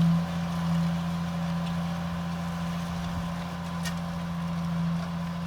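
Ford TW-15 tractor's six-cylinder diesel engine running steadily at constant revs.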